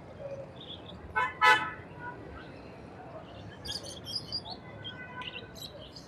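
A vehicle horn gives two short toots about a second in, over street traffic. Birds chirp high and bright around the four-second mark.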